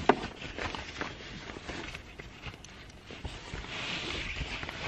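Cloth rustling with scattered knocks and bumps as a person shifts about inside a car, a hoodie sleeve brushing close to the microphone; one sharp knock right at the start.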